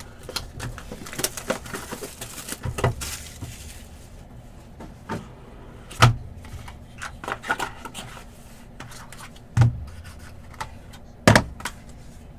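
Cardboard card box being opened and a card in a hard plastic case taken out and set down: irregular taps and knocks with a brief scrape of cardboard, the loudest knocks about six, nine and eleven seconds in.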